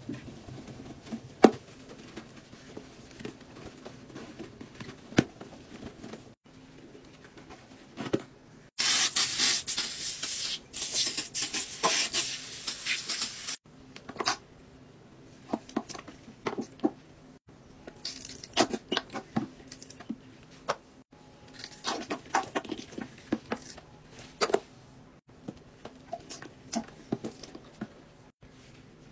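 Household cleaners being poured, squirted and shaken into a toilet bowl: scattered taps, drips and splashes, with a loud hiss lasting about five seconds midway.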